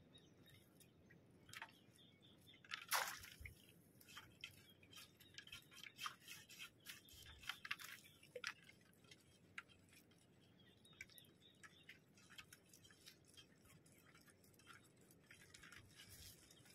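Faint, scattered rustles and scrapes of a rope and nylon fishing net being handled and untangled, with one louder scrape about three seconds in.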